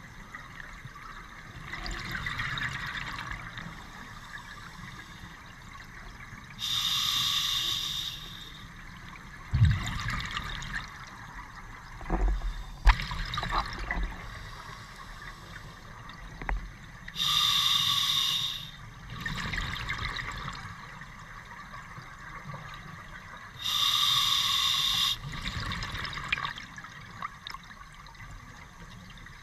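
Scuba diver breathing underwater through a regulator: three loud hissing breaths several seconds apart, with softer bubbling between them. A few sharp knocks come between about ten and seventeen seconds in.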